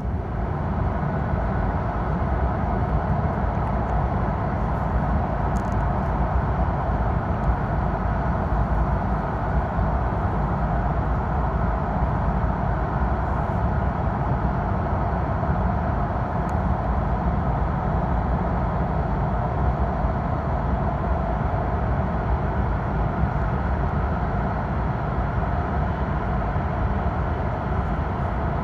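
Cabin noise of a Hokkaido Shinkansen bullet train running at speed through a tunnel: a steady, loud rumble with a hum over it. It gets louder just at the start as the train enters the tunnel, then holds even.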